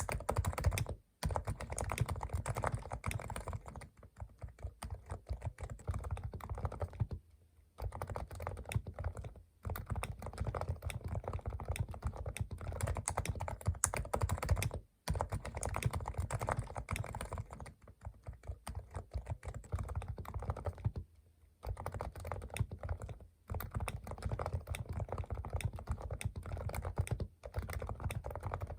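Leopold FC660C Topre electrostatic capacitive keyboard typed on rapidly, a dense run of keystrokes broken every few seconds by short pauses. Part of it is typed stock and part with the keycaps weighted inside with lead tape, which gives a heavier, more muffled keystroke.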